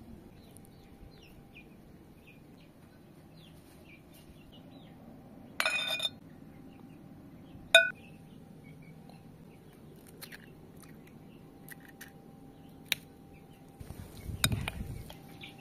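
Seasoning and mixing grated potato in a glass bowl: a brief rattle of a shaker, then a sharp clink on the glass bowl that rings for a moment, the loudest sound. Near the end a metal spoon scrapes and clinks through the wet grated potato in the glass bowl, with birds chirping faintly in the background.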